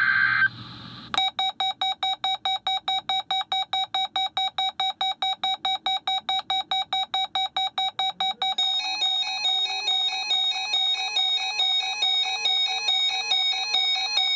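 RadioShack weather alert radios sounding their alert alarms, set off by the NOAA Weather Radio Required Weekly Test. Just before the alarms, a brief high two-tone data signal from the station ends about half a second in. About a second in, a shrill electronic beeping starts at about four beeps a second, and near the end more radios join with other alarm patterns, giving a dense, overlapping beeping.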